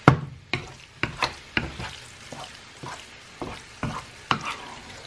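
Wooden spoon stirring and scraping diced vegetables in tomato sauce around a non-stick frying pan, with about two strokes a second and the loudest knock at the start. A low sizzle of the vegetables frying runs underneath.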